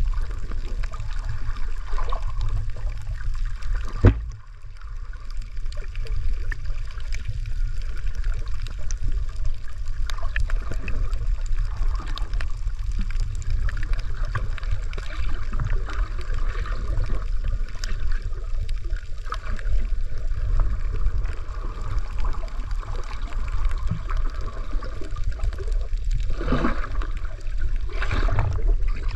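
Water moving around a camera held underwater: a steady, muffled low rumble with gurgling. There is a single sharp knock about four seconds in, and a couple of gurgling swishes near the end.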